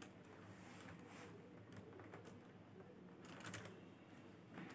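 Near silence with faint, scattered clicks as the plastic beadwork and a metal swivel clasp are handled, a small cluster of them about three and a half seconds in.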